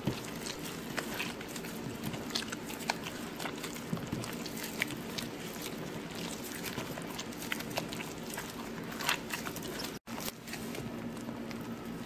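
A hand in a plastic glove squeezing and kneading raw eggs, palm sugar and pandan leaves in a glass bowl: irregular wet squishing with many small crackles and clicks. The sound drops out for an instant about ten seconds in.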